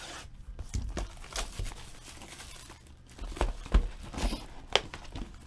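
Plastic shrink-wrap being torn and crinkled off a sealed box of football cards as it is opened: a run of irregular crackles, with a few sharper, louder ones in the second half.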